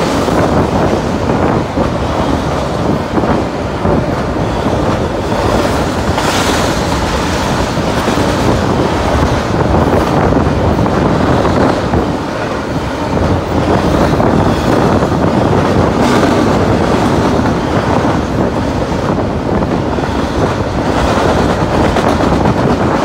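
Double-stack intermodal freight train rolling past below, with a steady loud rumble of its steel wheels on the rails.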